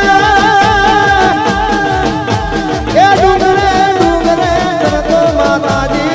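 Gujarati garba music played live: a long held melodic note with vibrato over a steady drum beat of about two to three strokes a second, with a new melodic phrase starting about three seconds in.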